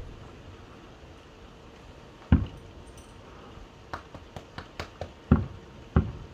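Aerial firework shells bursting in the distance: three deep booms, about two, five and six seconds in, with a few sharp crackling pops between them.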